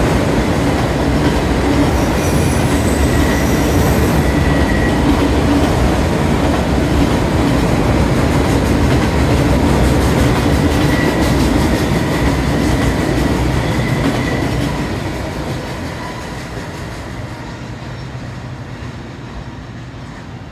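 Freight train of enclosed autorack cars rolling past on steel rails, a steady loud rumble of wheels on track with faint high wheel squeals now and then. The end of the train passes about two-thirds of the way in and the sound fades away.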